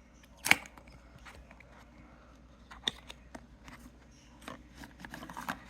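Cardboard packaging being torn open and handled by hand: one sharp snap about half a second in, then scattered small clicks and rustling.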